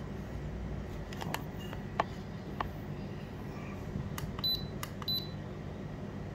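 Two short, high beeps from a FreeSub heat press's control panel as its settings are keyed in, among several sharp clicks, over a steady low hum.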